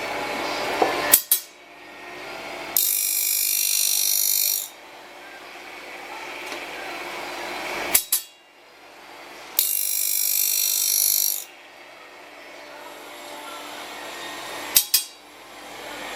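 Semi-automatic circular-saw-blade sharpening machine running through its cycle. Twice, a loud high grinding hiss lasts about two seconds; between these come a quieter rising noise and three sharp double clicks from the mechanism, each shortly before a grinding pass.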